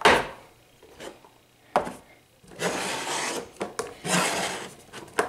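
A nested stack of plastic Speed Stacks sport-stacking cups being grabbed and moved on a shelf: a sharp knock at the start and a click a little under two seconds in, then stretches of rasping plastic-on-plastic and plastic-on-shelf rubbing.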